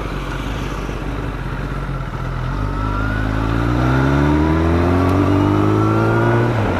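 Kawasaki ZX-10R inline-four engine accelerating in one gear, its pitch climbing steadily from about two and a half seconds in, then dipping briefly near the end.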